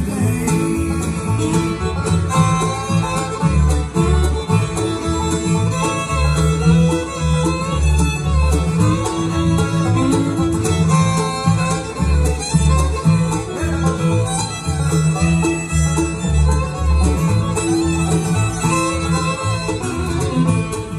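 Bluegrass band playing an instrumental passage on fiddle, banjo, upright bass, acoustic guitar and mandolin, the bass keeping a steady beat under the melody.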